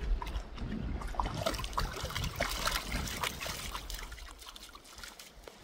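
Water splashing and trickling: a run of small irregular splashes that thins out and fades near the end.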